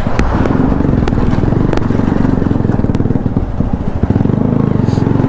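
Motorcycle engine running steadily as the bike rides along, heard from the rider's seat, its exhaust giving a fast, even pulsing.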